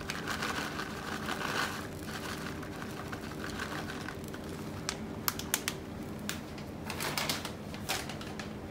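Plastic bag of shredded cheddar crinkling as the cheese is shaken out of it into a saucepan. A run of crinkling comes in the first two seconds, then scattered sharp clicks and short crinkles, over a steady low hum.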